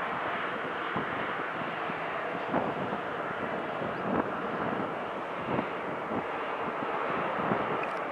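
Jet airliner engines running at taxi power, heard as a steady, even rushing noise.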